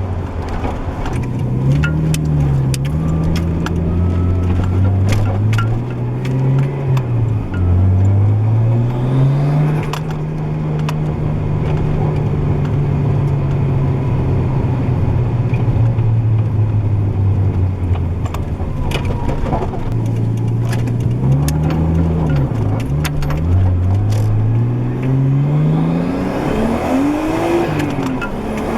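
Nissan RB20DET turbocharged straight-six in a 240SX, heard through a gutted Spec-D catback exhaust, pulling up through the revs and dropping back at gear changes. It holds a steady pitch for several seconds in the middle, then the revs dip and blip twice in quick succession before climbing again near the end.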